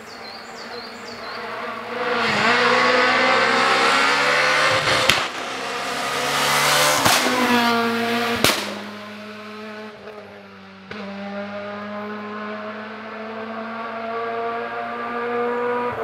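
Renault Clio rally car's engine revving hard and dropping back through a tight bend, with three sharp cracks along the way. After a sudden break near the middle, a rally car engine note rises steadily as it approaches.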